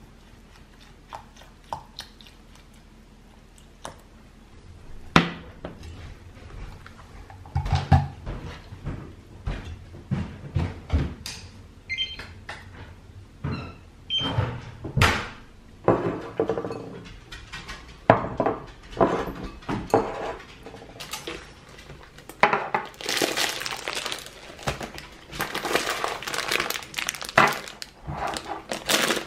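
Knocks, clinks and thunks of a saucepan and kitchen things being handled, a series of separate sharp sounds. Near the end comes a longer stretch of crinkling from a plastic bag of sunflower kernels being handled.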